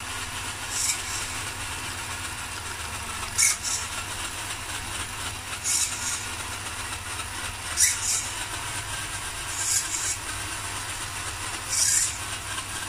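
HSP Brontosaurus RC monster truck's electric motor and gearbox running with the wheels spinning freely off the ground: a steady whir, with a brief louder hiss about every two seconds.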